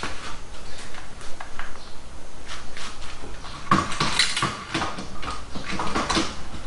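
Metal tools and parts clinking and knocking in irregular strikes, with a denser run of sharp metallic clanks about four seconds in.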